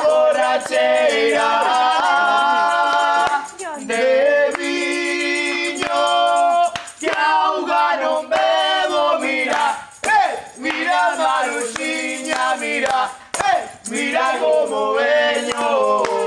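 A woman and young men singing a Galician folk song together, unaccompanied by instruments apart from a rattling percussion beat.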